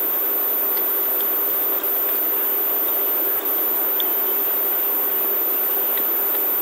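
Steady background hiss of a recording setup with a faint steady hum under it, and a few faint ticks.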